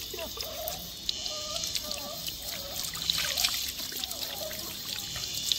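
Water trickling and pouring during a puppy's bath, with many small splashes and drips throughout.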